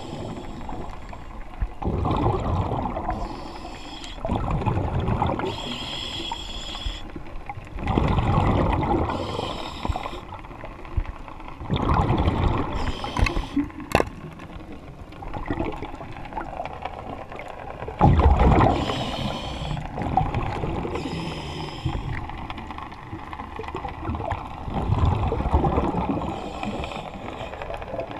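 A diver breathing underwater through a regulator fed by a surface air compressor hose: bursts of exhaled bubbles rumbling past the head every few seconds, alternating with the hiss of each inhale. A single sharp click about halfway through.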